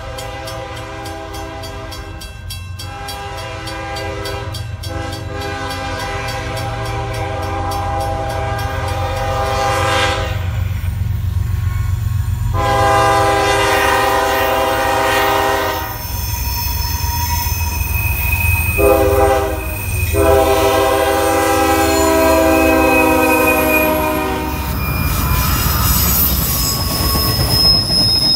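Approaching CSX freight train's diesel locomotive sounding its multi-chime air horn over a growing low engine rumble. The horn gives repeated long blasts, ending in the long, long, short, long grade-crossing signal. Near the end the freight cars roll past with wheels squealing on the curve.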